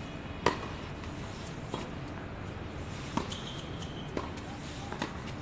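Tennis racket strings striking the ball during a doubles rally on a hard court: one sharp hit about half a second in is the loudest, followed by four fainter hits and bounces about a second apart.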